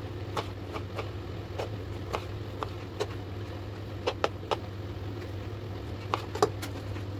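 Kitchen knife dicing peeled tomatoes on a cutting board: irregular sharp taps of the blade against the board, about two a second, over a steady low hum.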